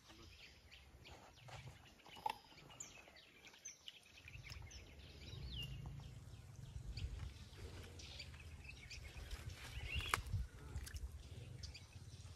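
Faint outdoor ambience of small birds chirping now and then, with a few sharp clicks. A low rumble comes in about four seconds in and stays.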